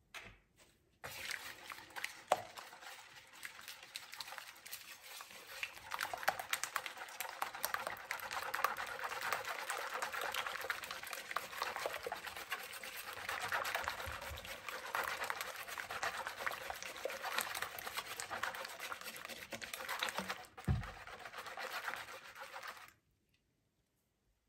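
Wire whisk beating eggs, sugar and melted butter in a bowl: a fast, continuous wet clicking and sloshing that stops about a second and a half before the end.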